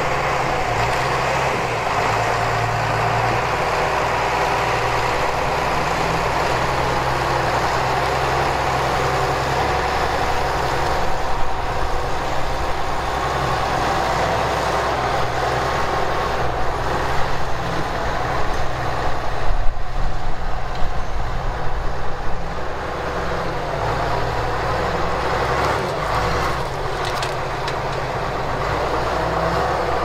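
Diesel engine of a John Deere cable skidder running as the machine works, its pitch shifting in steps with load and getting louder for a few seconds around the middle.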